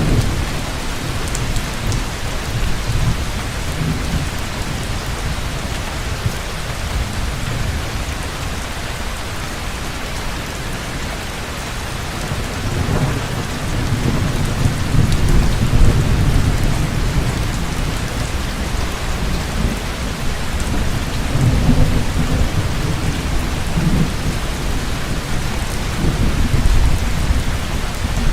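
Heavy rain falling steadily, with low rolling thunder that swells about halfway through and again near the end.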